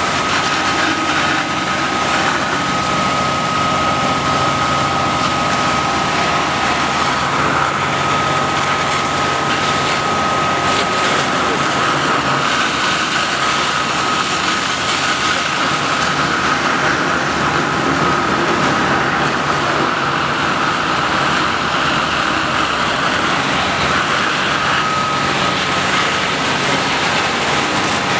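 Rosenbauer Panther airport crash-tender fire trucks running their engines and fire pumps hard to feed their water cannons: a loud, steady engine drone with a steady high whine over it.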